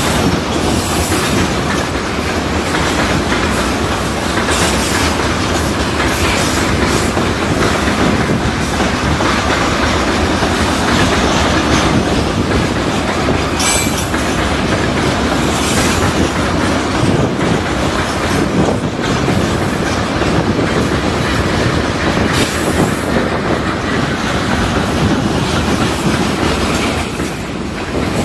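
Rail tank cars of a freight train rolling past: the wheels make a steady rumble and clickety-clack over the rail joints. There are brief high wheel squeals a few times and a single sharp clank about halfway through.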